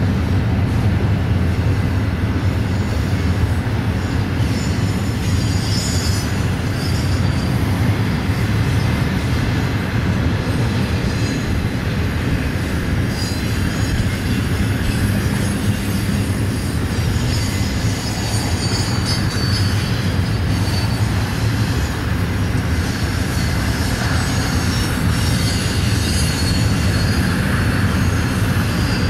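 Freight cars of an intermodal train rolling past, a steady loud rumble of steel wheels on rail, with high wheel squeals coming and going.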